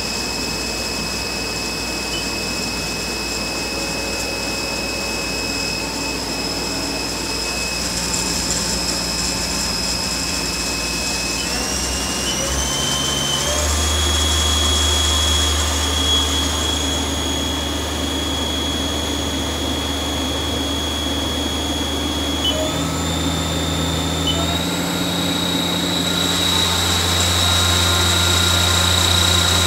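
Haas ST-10 CNC lathe with its spindle running: a steady high electric drive whine over a low hum. The whine steps up in pitch twice, about twelve seconds in and again about twenty-three seconds in, as the spindle speed goes up.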